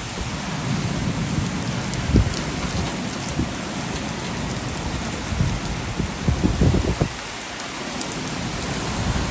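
Heavy rain falling steadily in a thunderstorm, with several short low rumbling bursts: about two seconds in, and again in a cluster near the middle.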